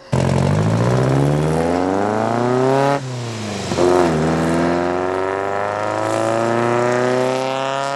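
Classic rally cars' engines accelerating hard, the engine note climbing steadily for about three seconds. After a sudden cut, a Volkswagen Beetle's engine dips briefly in pitch about a second later, then climbs slowly and steadily as the car pulls away.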